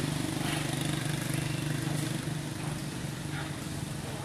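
A steady low motor hum, easing off slightly after about two seconds.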